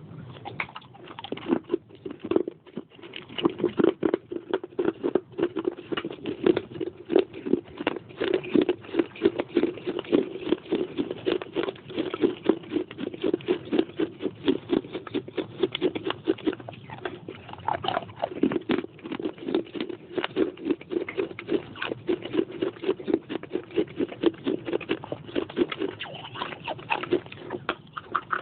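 A person chewing and crunching pieces of baked clay pot close to the microphone: a continuous, rapid run of crunches, several a second.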